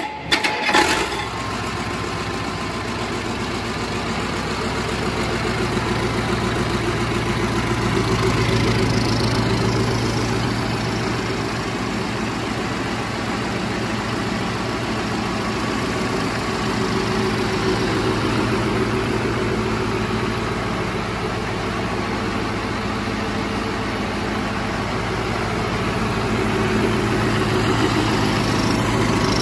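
Caterpillar 3408B direct-injection V8 diesel starting with a couple of sharp bangs right at the start, then idling steadily on its first run test after new rod and main bearings and a new oil pump.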